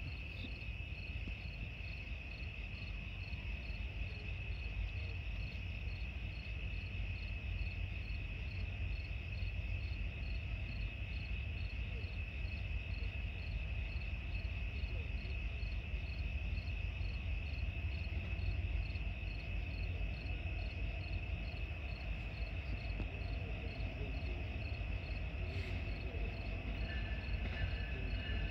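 Crickets chirping steadily in a continuous night chorus, over a low rumble that slowly grows louder. Near the end a second, repeating higher tone joins in.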